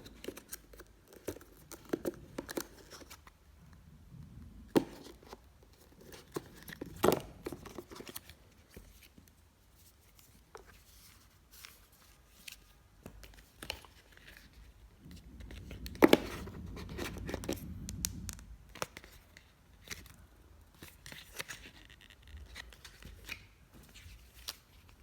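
Laptop packaging being torn open and handled: tearing and crinkling with scattered clicks and a few sharper knocks, and a longer rough rubbing stretch in the middle.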